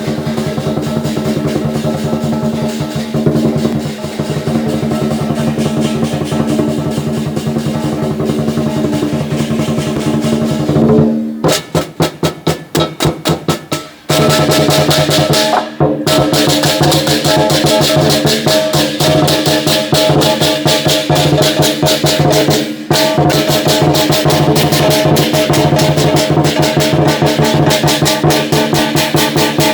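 Lion dance percussion band of big drum, clashing cymbals and gong, playing fast and loud over the ringing of the cymbals and gong. About eleven seconds in it drops to separate single strikes for a few seconds, then the full dense playing comes back.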